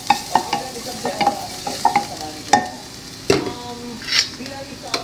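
Chopped garlic sizzling in hot oil in a stainless steel pan, stirred with a wooden spatula that knocks and scrapes against the pan about every half second over a steady hiss.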